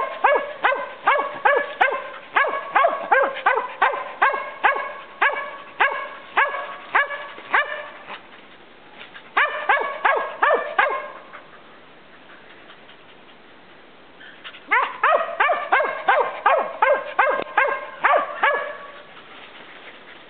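Mountain feist barking treed: quick, sharp chop barks at about two a second, in runs broken by pauses of a few seconds, the sign of a dog that has game up a tree.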